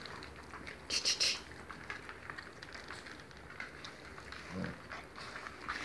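A litter of kelpie puppies eating mince and softened oats from a plastic tray: a steady run of wet chewing, lapping and smacking, with a louder short burst of slurping about a second in.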